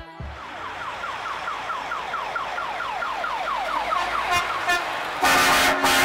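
A fast repeating falling warble, about four sweeps a second, over background traffic noise, then about five seconds in a truck's air horn blasts loudly.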